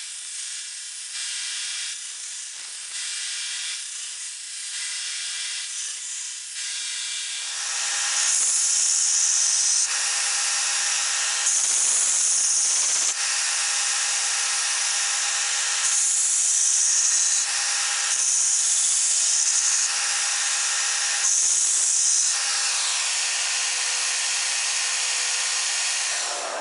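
An electric grinder running steadily on the steel knife blank. It gets louder about seven seconds in, and then the steel is pressed against it in several passes of a second or two each, each giving a bright hiss.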